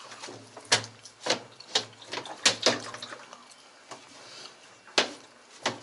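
Irregular sharp knocks and clicks, about seven of them, from tools and parts being handled while a washing machine is taken apart.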